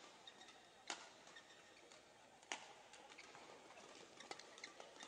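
Badminton rackets striking a shuttlecock: two sharp hits about a second and a half apart, then quicker, fainter ticks of play and footwork on the court near the end.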